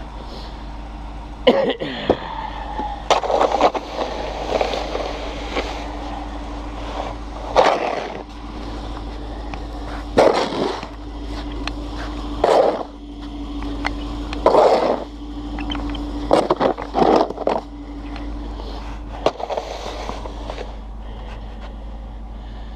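Snow shovel blade scraping and knocking over snow-covered pavement in repeated strokes, one every one to three seconds, over a steady low hum.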